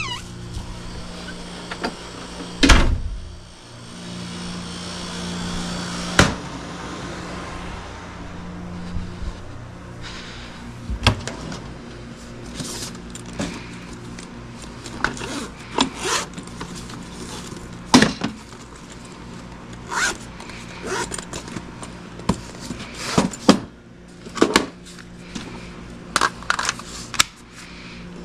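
Cordless drill running steadily as it drives thick screws to mount a ceiling fan box, stopping about ten seconds in. After that come scattered knocks and clicks of the drill, screws and box being handled.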